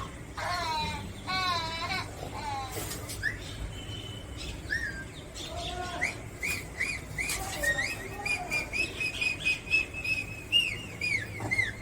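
Bird-like chirping and whistling. A couple of warbling, wavering calls come in the first few seconds, then from about halfway a quick run of short repeated chirps, two or three a second.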